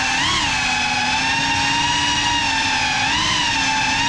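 GEPRC CineLog35 cinewhoop FPV drone's brushless motors and ducted propellers whining steadily in flight. The pitch rises and dips briefly just after the start and again about three seconds in as the throttle changes.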